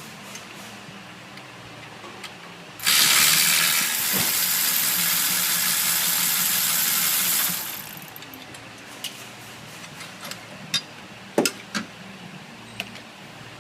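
A loud steady hiss, like compressed air or a spray, starts abruptly about three seconds in and cuts off after about five seconds. Before and after it come scattered light clicks and taps of hand tools working on the engine.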